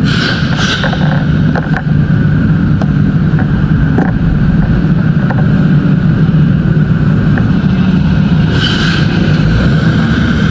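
A vehicle engine running steadily with a loud, low drone. Two short hissing bursts come through near the start and again about eight and a half seconds in.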